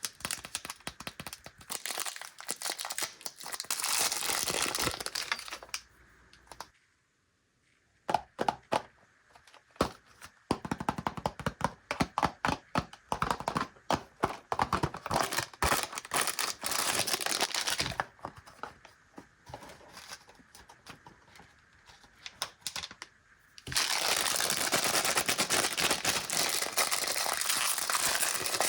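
Plastic candy wrappers and packaging being handled, crinkled and torn open, with sharp crackling. A near-silent pause comes about seven seconds in, and steady crinkling runs from about 24 seconds.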